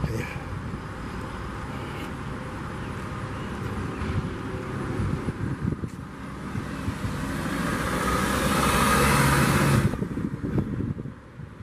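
A road vehicle passing, its noise swelling over a few seconds to its loudest and then dropping off sharply near the end, over steady outdoor noise.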